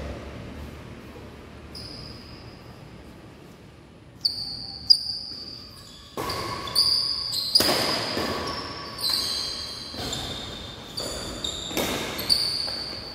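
Badminton rally: sharp cracks of rackets striking the shuttlecock about once a second, starting about four seconds in, mixed with sneakers squeaking on the court floor. The strikes ring out in a large echoing hall.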